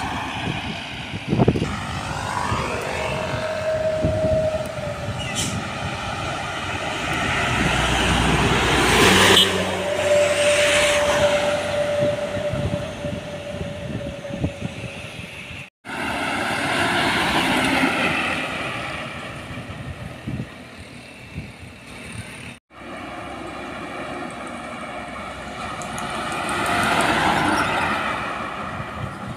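Trucks and a small pickup truck passing close by on a highway, one after another, each engine and its tyres swelling and fading with the engine pitch dropping as it goes by.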